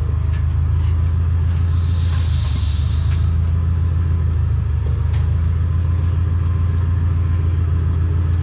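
Steady low machine hum with no change in level, and a brief hiss about two seconds in.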